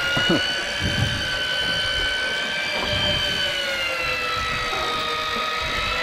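Electric deep-drop fishing reel winding line in under load from a fish: a steady motor whine whose pitch sags slightly about four seconds in and then climbs back.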